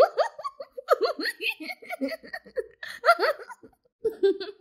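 A young girl giggling in a quick run of short, high-pitched laughs, with a brief pause about four seconds in. It is the teasing laughter of a child running away from the brother she has just provoked.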